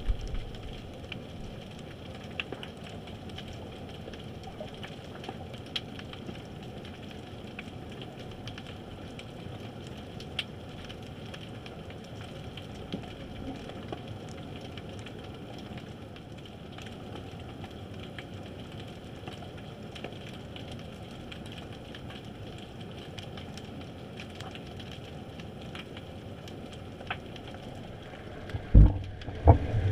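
Underwater ambience picked up by a submerged camera: a steady hiss with many scattered faint crackling clicks. A few heavy low thumps come near the end.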